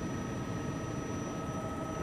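Steady helicopter engine and rotor noise from aboard the aircraft: a constant low rumble with a thin, unchanging high whine over it.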